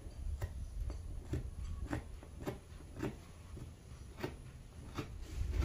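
Small scissors snipping through layered fabric, a short crisp snip about every half second as the welt pocket opening is cut.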